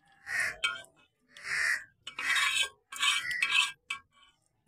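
Metal spoon scraping chicken masala out of a wok into a steel biryani pot: a series of short scrapes, each up to about half a second, with short gaps between.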